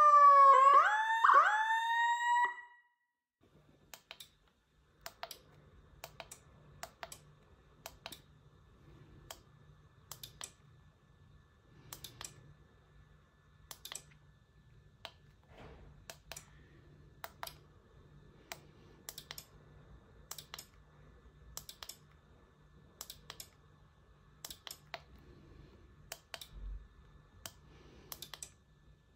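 An electronic vehicle siren (CJB100-W069 unit) sounds a falling wail, then a few quick short yelps, and cuts off about two and a half seconds in. Irregular sharp clicks of its control-panel push buttons follow, about one or two a second, over a faint steady electrical hum.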